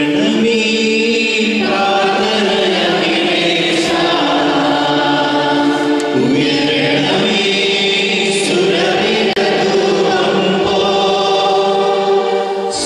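Choir singing a liturgical hymn, with long held notes that change pitch every second or two.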